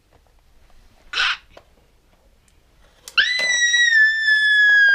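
A young girl's long, high-pitched scream of alarm that starts about three seconds in, held on one note and sagging slightly in pitch. Before it there is a brief soft rustle about a second in.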